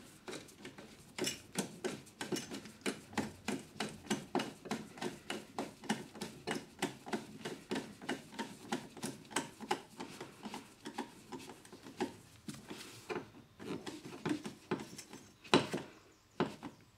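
Screwdriver turning the screw of an earth clamp on a copper pipe, tightening it down through the split strands of the earth wire: a steady run of small clicks about three a second, with one sharper, louder click near the end.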